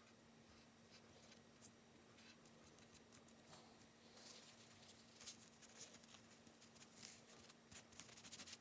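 Faint scratchy rubbing of a cotton swab and then a tissue wiping thermal paste residue off a laptop CPU die, in short scratchy strokes that come thicker in the last second, over a faint steady hum.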